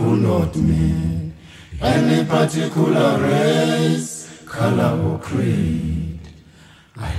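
Unaccompanied a cappella singing: three long sung phrases with short breaks between them.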